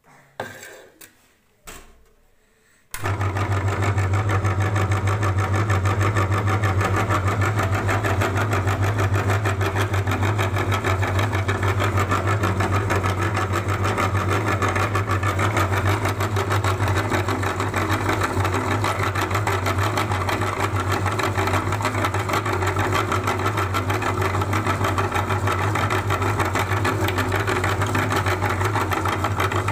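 A few light knocks, then about three seconds in an electric meat grinder's motor switches on and runs steadily with a low hum and a fast even rattle while rubber balloons are fed into its hopper.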